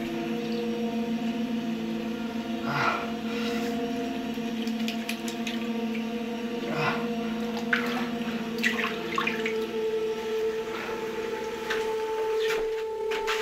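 Tap running into a filled bathroom sink, with hands splashing and rubbing in the water in irregular strokes. A steady, sustained humming tone sounds underneath throughout.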